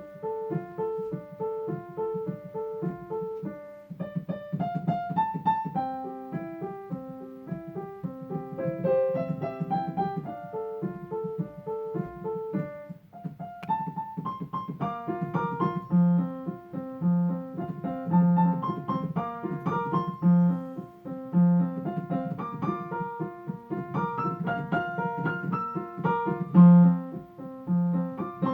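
Solo piano music. Repeated notes in a steady pulse are joined by a melody about four seconds in, and stronger low bass notes come in about halfway through.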